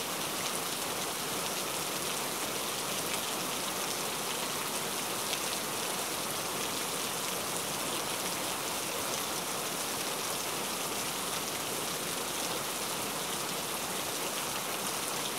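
Steady, even hiss like falling rain, with no distinct knife chops standing out from it.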